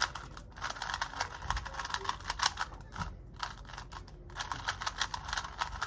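3x3 Rubik's cube being turned fast: rapid runs of plastic clicks as the layers snap round, broken by brief pauses. These are the last moves of the solve.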